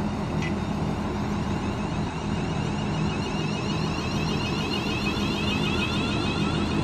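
Class 350 Desiro electric multiple unit pulling away, its traction motors whining over a steady low hum. From about halfway the whine rises in pitch again and again as the train gathers speed, getting slightly louder.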